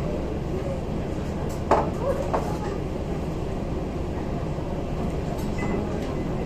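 Steady low rumble heard aboard a cruise ship under way, with two short knocks about two seconds in.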